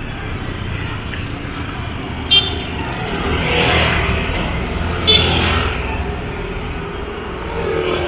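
Road traffic rumbling steadily, with a vehicle passing about halfway through and two short horn toots, one a little over two seconds in and one about five seconds in.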